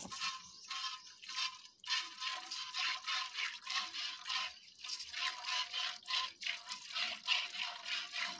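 Milk squirting from a cow's teats into a metal bucket during hand milking: a short hissing squirt about three times a second, with the bucket ringing faintly under it. The strokes come faster and steadier from about two seconds in.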